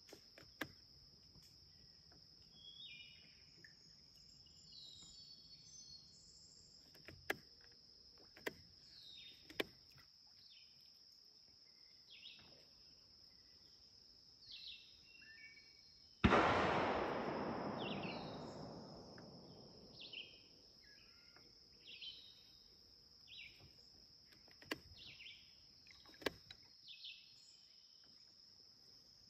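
Insects droning steadily on one high note, with scattered short bird chirps and a few sharp clicks. About sixteen seconds in, a sudden loud rush of noise starts and fades away over about four seconds.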